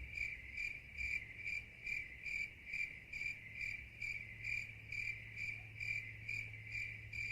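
A cricket chirps steadily, about two to three chirps a second, over a faint low hum. This is the stock 'crickets' sound effect that marks an awkward silence after a joke falls flat.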